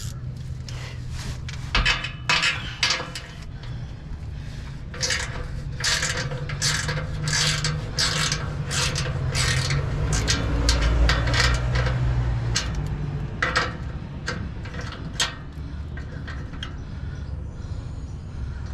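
Repeated short rasping, scraping strokes, about two a second and busiest in the middle, as something is pulled tight to tie up a car's sagging exhaust pipe, over a low steady hum.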